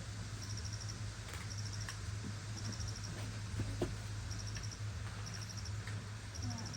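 An insect chirping in short trills of about five quick high pulses, repeating roughly once a second, over a steady low hum. A few faint clicks sound in between, the clearest a little before four seconds in.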